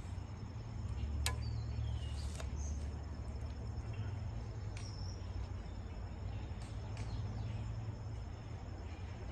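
Handling of a barebow recurve as an arrow is nocked and drawn: one sharp click about a second in, then a few faint softer clicks, over a steady low rumble and a faint high insect hum.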